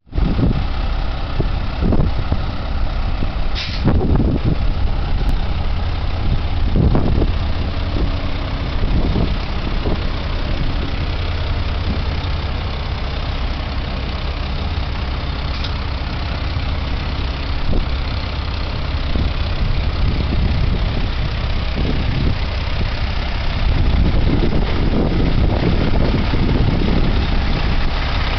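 Volvo D12 12.1-litre diesel engine of a Vactor combo truck running steadily, with a few short louder sounds over it, the sharpest about four seconds in.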